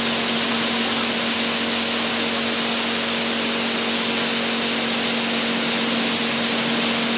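High-pressure water jets from an automatic touchless motorcycle wash's overhead spray arm hissing steadily onto a motorcycle as the arm swings around it, over a steady mechanical hum.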